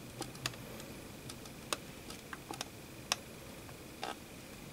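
Irregular faint sharp crackles and ticks, about ten over a few seconds with one longer sizzle near the end: solder and flux spitting as a soldering iron's tip heats a joint between two copper strips.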